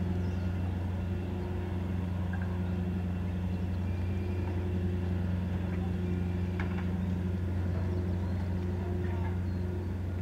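Moored ship's engine running at idle: a steady low hum that holds an even pitch and level throughout.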